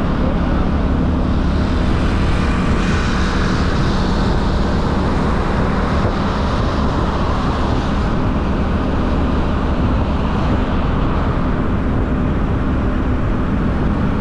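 Sanya motorbike's engine running steadily at cruising speed, with a continuous rush of wind and road noise over it.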